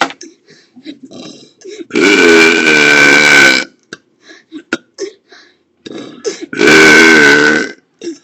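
Two long, loud, deliberate burps, the first starting about two seconds in and lasting nearly two seconds, the second shorter, near the end, with a wavering pitch; faint small clicks between them.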